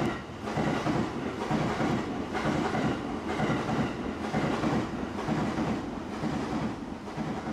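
Electric train running on the track, its wheels clattering over rail joints in a repeated, uneven rhythm above a steady rumble.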